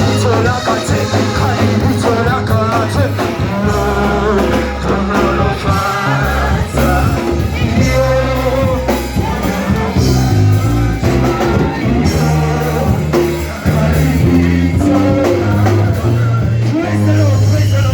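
Loud amplified music with singing, carried by heavy sustained bass notes.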